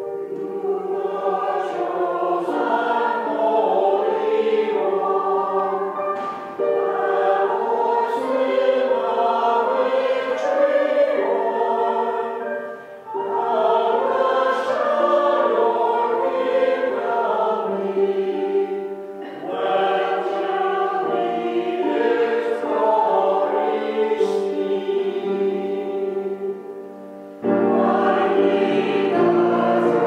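Church choir singing a choral anthem in several parts, phrase by phrase with brief breaks between. Near the end, lower parts come in and the sound grows fuller and louder.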